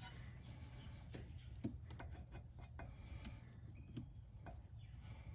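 Faint, scattered small clicks and scratches of a thin pick and gloved fingers working at the plastic plug of a brake pad wear sensor, prying at its latch to release it.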